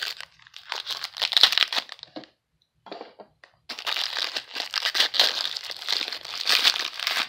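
Foil wrapper of a trading card pack crinkling in the hands as it is opened, in two spells with a near-silent pause of about a second and a half between them.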